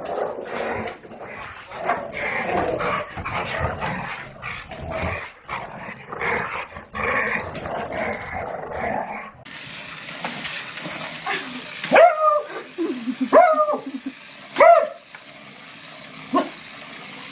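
Two dogs playing rough, with short yips and growls. Then a beagle barks four times, loud and spaced out, each bark falling in pitch.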